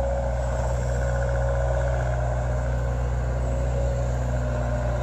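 Diesel engine of a yellow compact wheel loader running steadily, a continuous low drone with a faint steady whine over it.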